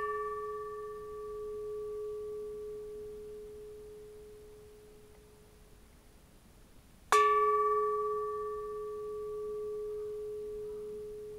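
Bronze Japanese Buddhist temple bell ringing, a clear low tone with a few higher overtones that fades slowly over several seconds. It is struck again about seven seconds in and rings on.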